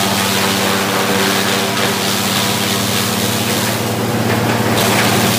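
Electric-motor straw chopper (silage chaff cutter) running under load, shredding a bundle of dry straw: a steady motor hum under a constant rushing noise of the cut straw being thrown out.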